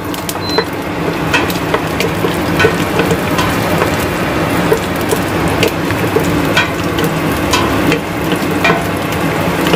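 Garlic sizzling as it sautés in a little cooking oil, with a utensil stirring it and clicking against the pan about once a second.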